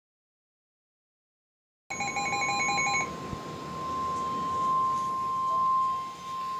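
Dead silence for about two seconds, then about a second of pulsing Emergency Alert System data tones at several pitches. These give way to the steady, single-pitch EAS warning alarm tone over faint radio static, the signal that a new severe thunderstorm warning follows.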